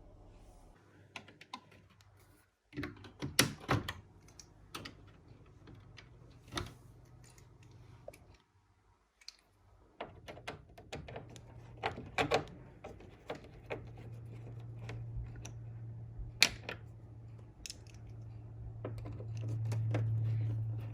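Irregular clicks and knocks of hands working on a Mitsubishi heat pump's casing and parts, with a sharp cluster of knocks about three seconds in. A low steady hum grows louder in the second half.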